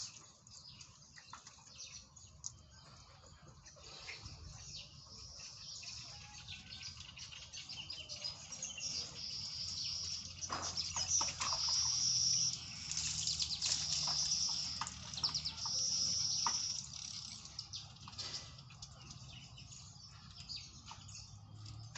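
Birds chirping and trilling, growing louder about halfway through, with a few short knocks.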